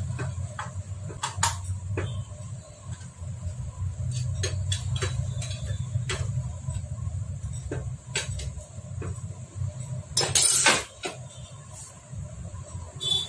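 Metal hand-tool clicks and clinks on a motorcycle engine under assembly, as a long T-handle tool is worked in the engine, with a louder clattering burst of just under a second about ten seconds in. A steady low hum runs underneath.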